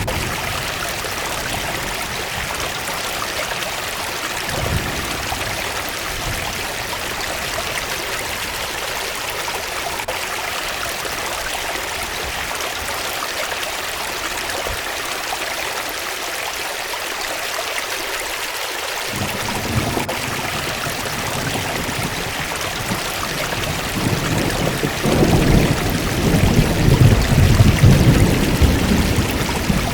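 Forest waterfall's running water, a steady rushing hiss. About two-thirds of the way in a deeper, fuller rush joins it and grows louder near the end.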